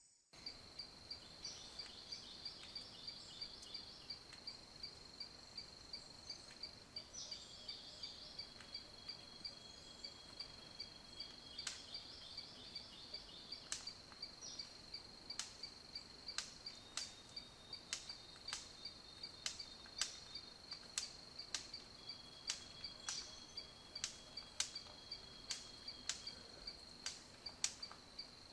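Insects, likely crickets, chirping in a faint steady high trill, with a few other chirps over it. Sharp clicks come through it, sparse at first and then about once a second in the second half.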